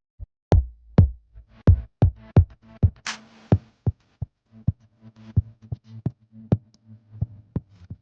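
Electronic music with drum-machine hits over a low synth bass, with a cymbal-like crash about three seconds in.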